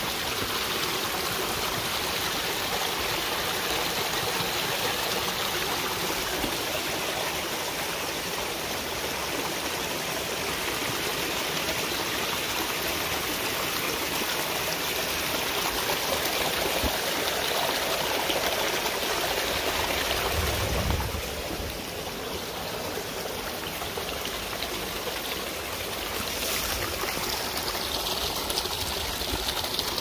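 Steady rushing of stream water, a little quieter after about twenty seconds.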